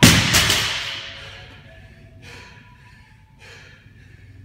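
A loaded deadlift barbell with bumper plates dropped onto the gym floor: a loud crash that rings and dies away over about a second. Then two heavy breaths from the winded athlete.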